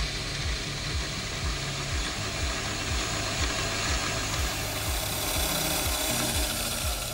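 Milling machine spindle with an end mill cutting a metal faceplate, a steady hiss of cutting that grows louder about four seconds in, over background music with a steady low beat.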